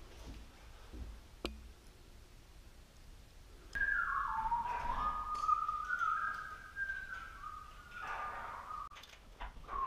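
A man whistling a short tune: a run of clear notes that steps down and then back up in pitch, starting about four seconds in and stopping shortly before the end. A single sharp click comes about a second and a half in.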